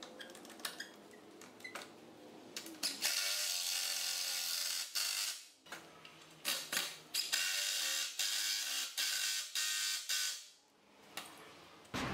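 A few light clicks from a bar clamp being squeezed tight, then a cordless drill/driver running in two bursts of a few seconds each, driving a screw into a wooden bed rail.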